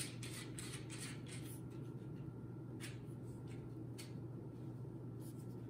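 Faint rustling and a few light clicks as a folding cane and its holding strap are handled, over a steady low hum.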